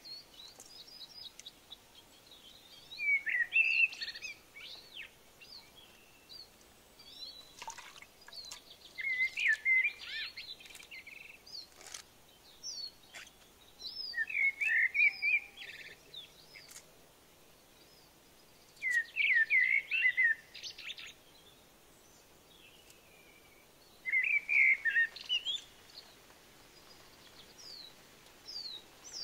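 A songbird repeating a short, quick warbled phrase about every five seconds, with fainter scattered chirps between the phrases.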